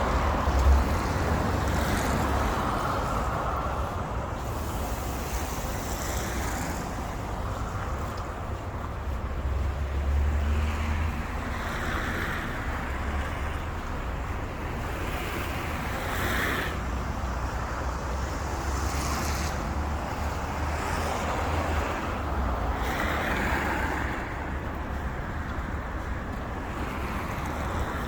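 City street traffic: cars passing one after another with a steady low rumble and a tyre hiss that swells and fades every few seconds, with wind on the microphone.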